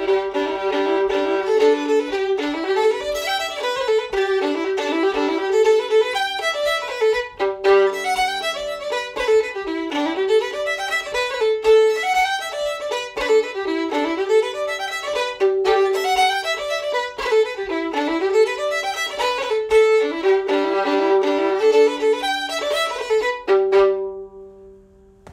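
Solo violin played with a bow, a fast, lively fiddle tune of quick notes running up and down. Near the end it settles on one held note that rings out and fades.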